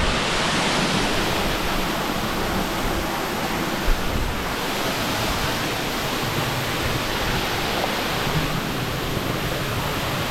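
Steady rushing of a nearby waterfall, an even hiss that does not change, with one short knock about four seconds in.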